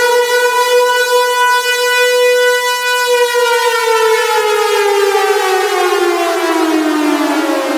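Civil defense air-raid siren sounding a nuclear evacuation alarm: a loud, steady wailing tone that, about three seconds in, begins to wind down, its pitch falling steadily as the siren slows.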